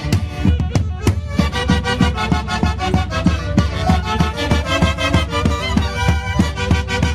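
Music from a festival orchestra: a melody played by several instruments over a steady, quick drumbeat.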